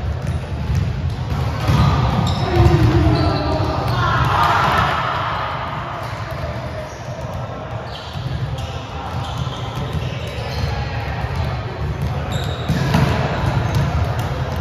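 Volleyballs being hit and bouncing on a gym floor, a run of separate thuds that echo around the hall.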